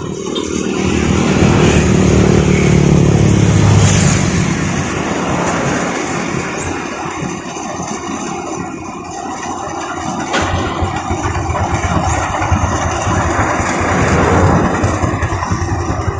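Combine harvester engine running hard, revving up over the first few seconds and then running steadily.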